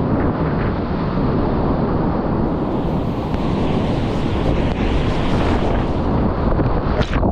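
Churning whitewater rapids at high flow, heard from a kayak in the middle of them: a loud, steady rush of water, with wind noise on the microphone.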